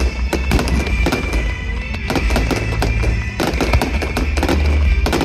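Fireworks going off in quick succession, many sharp bangs and crackles over deep booms, with music playing at the same time.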